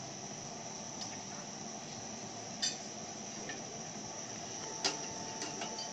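A metal spoon clinks twice against a copper crêpe pan, about two and a half and five seconds in, over a steady high-pitched trill of crickets.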